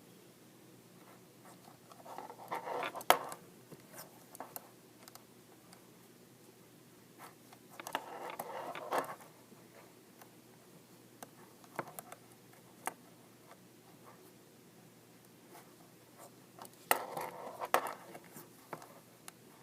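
Size 8 knitting needles clicking and yarn rubbing through a row of knitting: scattered light clicks, with three brief rustling swells at about two, eight and seventeen seconds in.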